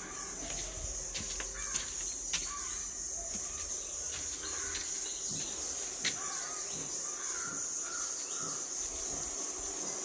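Steady high-pitched chorus of crickets, with a few faint bird calls and occasional sharp clicks.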